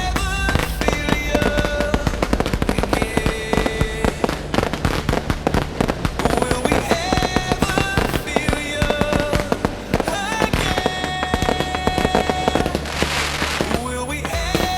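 Fireworks display: a dense run of rapid bangs and crackles, with music playing over them.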